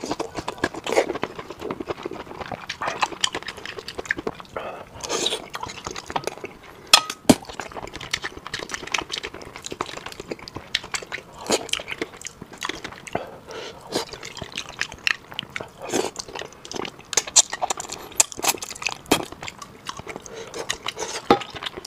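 Close-miked eating sounds: wet chewing, sucking and slurping of a saucy braised fish dish and a soft green pepper, with sharp clicks of chopsticks against the plate.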